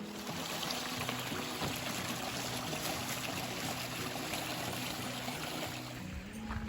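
Mountain stream rushing, a steady water noise that comes in suddenly at the start, under background music.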